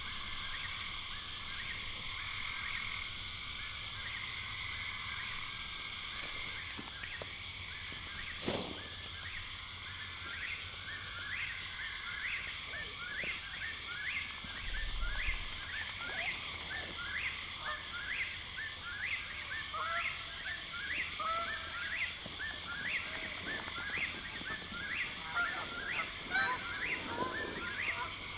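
Night chorus at a lake: a steady high, trilling chorus of frogs or insects, joined from about ten seconds in by a run of short, rising calls repeated about once or twice a second. A single sharp click comes about eight seconds in.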